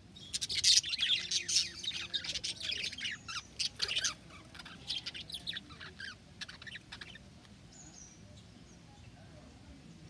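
A flock of budgerigars chirping, a dense rapid run of short high chirps over the first four seconds, thinning to scattered chirps and then only a few faint calls near the end.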